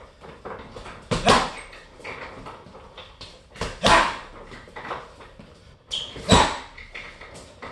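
Boxing gloves punching a hanging Everlast heavy bag: three quick two-punch combinations, each a pair of thuds, about a second, four and six seconds in, with lighter hits between.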